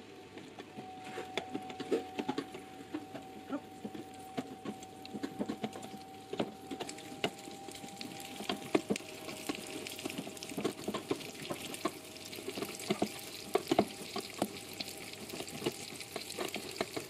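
A spatula scraping halušky dough through a perforated metal halušky maker over a pot, in many irregular short scrapes and clicks of metal. A faint steady whine sits underneath.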